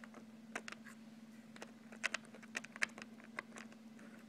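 Light, irregular clicks and ticks from a plastic HO scale model locomotive being handled and moved along the track by hand, over a steady low hum.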